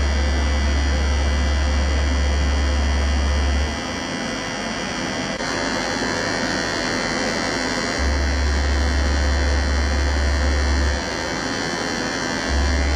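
Analog electronic tone generators droning: layered steady hums and buzzing tones, with a loud low hum that cuts out about four seconds in, returns at about eight, cuts out again at about eleven and comes back near the end. The higher tones shift about five seconds in.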